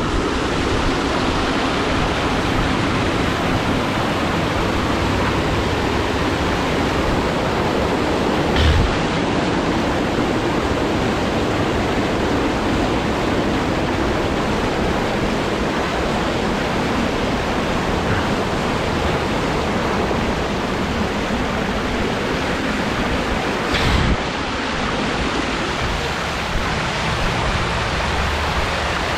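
Recumbent trike wheels ploughing through shallow floodwater, a steady rushing splash of spray off the wheels. Two brief thumps break through it, one about a third of the way in and one near the end.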